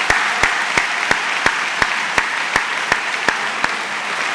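Audience applauding, with one person's sharp claps close to the microphone, about three a second, that stop near the end.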